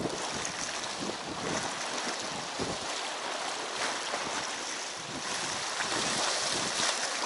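Sea waves washing against shore rocks, with wind buffeting the microphone.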